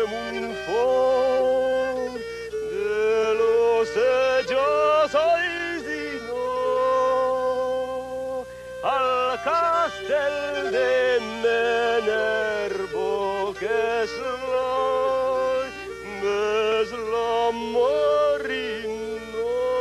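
Background music: a solo voice sings a melody with quick, ornamented turns and long held notes over a steady drone.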